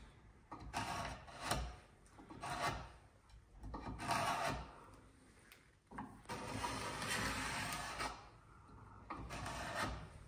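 Bevel-edge chisel scraping along the bottom of a groove in wood, cleaning stray waste out of the corner: a run of short scraping strokes with pauses between, the longest about six seconds in.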